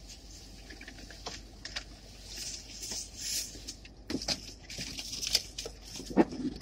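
Takeout food packaging being handled: paper and wrappers rustling and crinkling, with scattered light clicks and taps.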